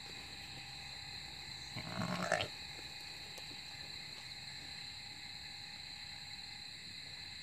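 Steady high chirring of night insects, with one short, louder grunt-like sound from the Dorper sheep about two seconds in, lasting well under a second.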